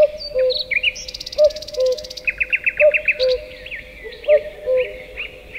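Birds singing: a low two-note call, falling from the first note to the second, repeats about every second and a half, over higher chirps, quick trills and sweeping notes from songbirds.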